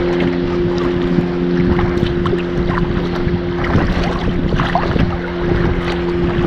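Sea kayak under way on calm sea: water lapping and paddle splashes against the hull, with wind buffeting the microphone. A steady low hum runs underneath throughout.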